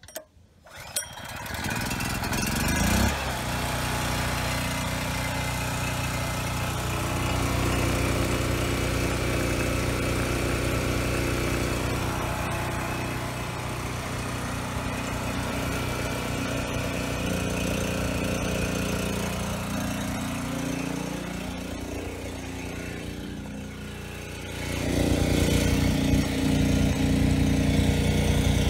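Predator 4000 portable generator's 212 cc single-cylinder engine starting about a second in and rising to a steady run. About twenty seconds in its note sags and wavers as it labours under a space-heater load of close to its rated output, then about twenty-five seconds in it comes back up louder and steady.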